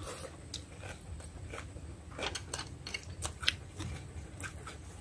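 Chewing and crunching on a mouthful of leaf-wrapped grilled armored catfish with raw vegetables and a whole young tamarind, heard as scattered small crunches and clicks.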